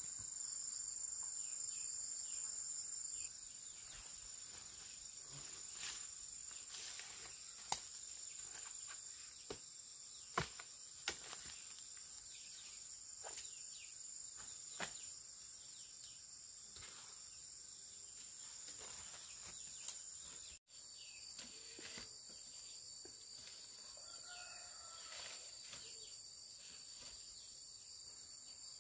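Insects trilling steadily in a high pitch, loudest for the first few seconds; a second, slightly lower trill joins about two-thirds of the way through. Scattered light rustles and knocks of footsteps on dry leaves and bamboo shoots being handled.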